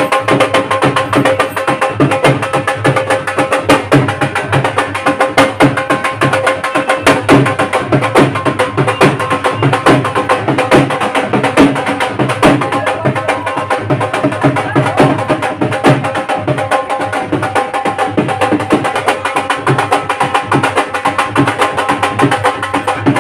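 Indian folk dance music driven by fast, steady dhol drumming, with held melody tones over the beat.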